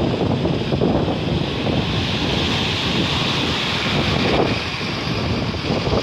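Sea surf breaking and washing up a pebble beach, with wind buffeting the microphone throughout. The hiss of the wash swells in the middle.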